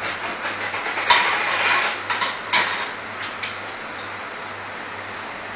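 Metal cookware and utensils clanking at a commercial gas range, with a few sharp knocks between about one and two and a half seconds in and another near three and a half seconds, over a steady low hum.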